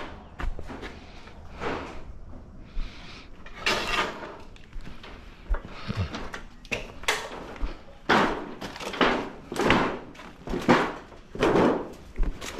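Irregular knocks, clanks and thuds of metal parts being handled and set in place on the dozer, a few separate hits in the first half and a busier run of them in the second half.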